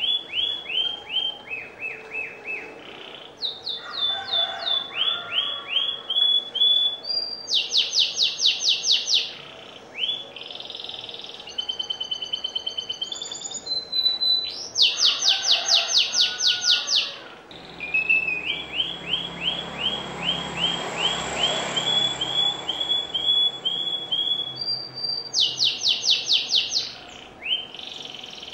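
Domestic canary singing a continuous song of trilled phrases. Each phrase is a run of one note repeated, some fast and high-pitched, others slower sweeping notes lower down, and the phrase changes every second or two.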